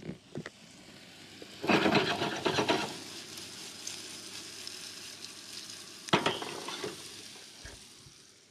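Diced onions and vegetables frying in a skillet on a propane camp grill-stove, sizzling steadily. The pan is stirred with louder scraping and clattering about two seconds in and again around six seconds, and the sizzle fades toward the end.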